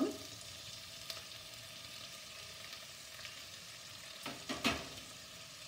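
Shallots and onion sizzling steadily in hot oil in a pan as tomato pieces are added. A few knocks about four and a half seconds in.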